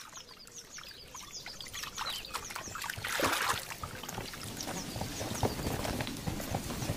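Outdoor nature ambience: small birds repeat short, high, falling chirps, over water trickling and pouring. A louder falling sound comes about three seconds in, and soft low taps follow in the second half.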